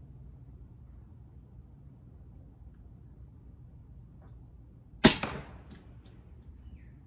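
Single shot from an EDgun Leshiy 2 .30-calibre (7.62 mm) PCP air rifle: one sharp crack about five seconds in, dying away over about half a second, with faint bird chirps in the background.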